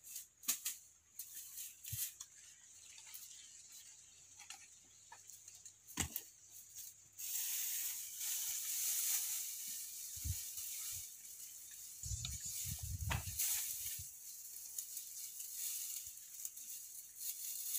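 Dry grass thatch rustling as it is handled, heaviest in the middle stretch, with scattered sharp knocks in the first few seconds and a few dull thumps after about ten seconds.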